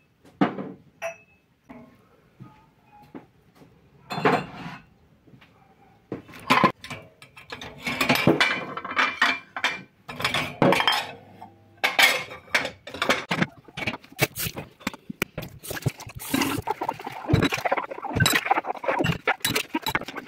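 Dishes, pots and cutlery clinking and clattering as they are washed by hand at a kitchen sink. A few separate knocks at first, then busy, continuous clattering from about six seconds in.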